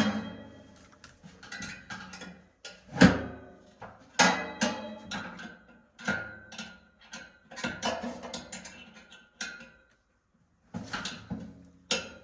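Irregular knocks, clicks and rattles of furnace parts and tools being handled, with one heavy knock about three seconds in and a short pause near the end.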